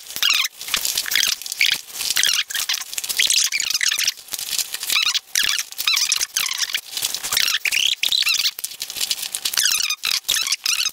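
Small dog snuffling and sniffing at ping pong balls in a cardboard egg tray, with a run of weird high squeaky noises over and over.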